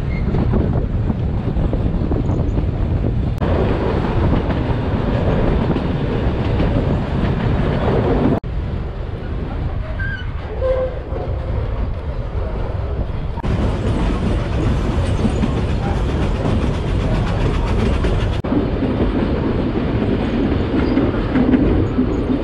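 Puffing Billy's narrow-gauge train running, heard from aboard a carriage: the steady noise of the carriage wheels on the rails. The sound changes abruptly about every four to five seconds where short clips are spliced together.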